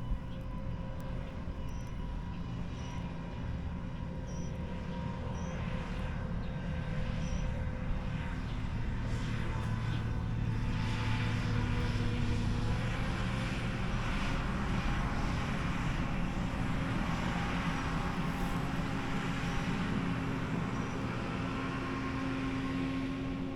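Heavy farm harvest machinery running steadily: a constant engine drone with a wash of machine noise that swells and eases a little in the middle.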